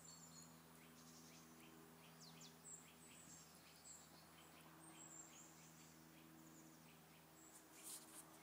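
Faint small birds chirping and whistling, repeatedly, over a steady low hum.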